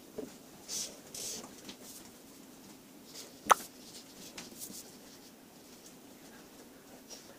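Felt-tip marker drawn along a plastic ruler on paper in a few short scratchy strokes, with one sharp click, the loudest sound, about three and a half seconds in.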